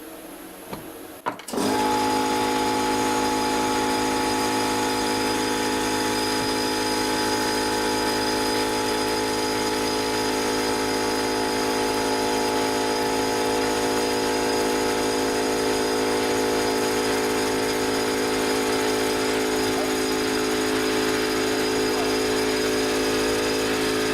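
A small electric motor starts up about a second and a half in and runs at a steady, unchanging speed with a continuous mechanical hum.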